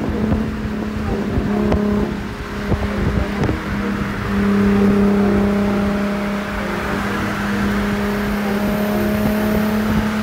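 Cars driving at speed side by side: a steady engine drone that holds one pitch, under heavy wind noise on the microphone from the open side window.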